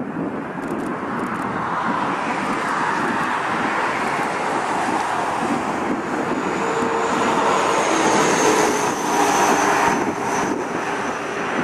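Antonov An-124's four turbofan engines on landing approach: a steady jet roar that slowly grows louder as the aircraft comes past. About halfway through, a high whine rises out of the roar and slides slowly lower in pitch.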